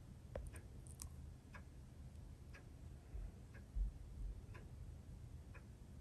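Faint, irregular small clicks as a plastic squeeze bottle of glue is handled and squeezed over a porcelain spoon, with a soft low thump a little past the middle.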